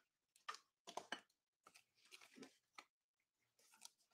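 Faint, scattered rustles and light taps of trading cards and clear plastic penny sleeves being handled.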